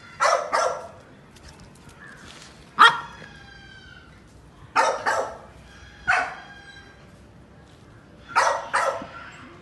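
Siberian husky puppy giving short, high barks and yips, about eight in all, several in quick pairs, each dropping slightly in pitch.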